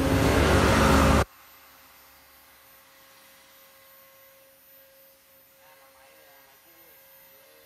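XL-1325 CNC router milling an aluminium composite panel: a loud, even cutting noise that stops suddenly about a second in. After that only a faint steady hum remains.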